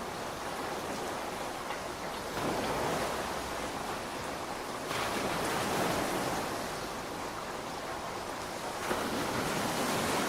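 Steady heavy rain as a continuous hiss, swelling louder in three surges a few seconds apart.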